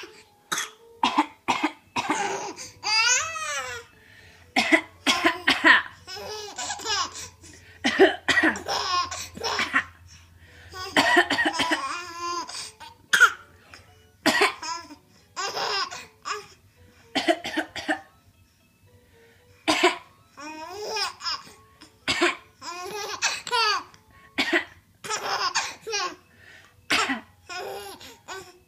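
A person coughing in short, sharp fits and laughing between them, over and over, the laughter wavering up and down in pitch.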